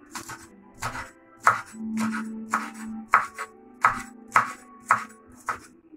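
Kitchen knife chopping scallions on a wooden cutting board: a steady run of sharp knocks, about two cuts a second. Background music plays underneath.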